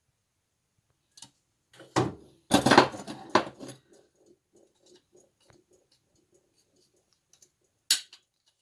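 Small metal parts and hand tools being handled while a folding icon's leaf is worked onto its wire hinge pin: a burst of knocks and scrapes about two seconds in, faint ticking after it, and one sharp metallic click near the end.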